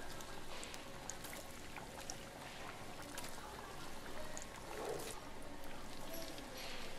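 Glutinous-rice doughnuts deep-frying in a vat of oil, a steady sizzle with scattered light clicks.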